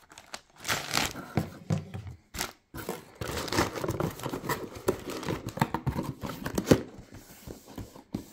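Plastic air-column packing wrap crinkling and rustling as it is handled, mixed with knocks and scrapes of the cardboard box. The rustling is irregular, with a sharp loud knock about two-thirds of the way in, and it dies down near the end.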